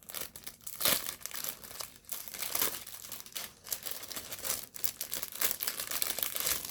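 Packaging being torn open and crinkled by hand as a small item is unwrapped: irregular crackling and rustling, with a sharper tear about a second in.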